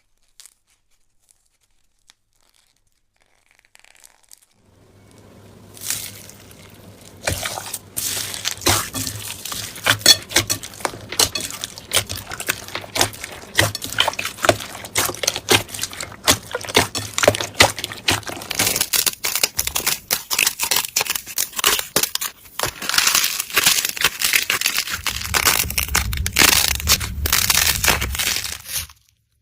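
Slime being squeezed, pressed and pulled apart by hand close to the microphone, giving a dense run of crackling and popping that starts after a few seconds of near silence.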